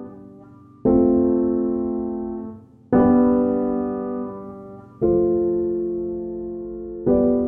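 Background music: slow piano chords, a new one struck about every two seconds and left to die away.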